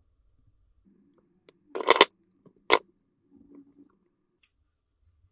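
A plastic shotgun-shell wad being worked loose from an opened 12-gauge slug shell by hand: faint rubbing of the wad in the casing, a short clattering rattle about two seconds in, and a few sharp clicks.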